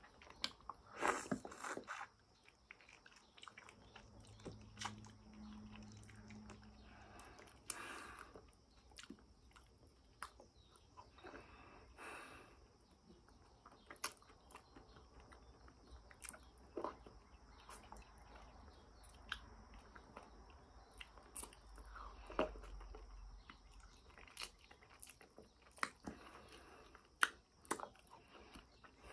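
A person eating soft durian flesh: faint chewing and mouth smacks, with many short clicks scattered throughout.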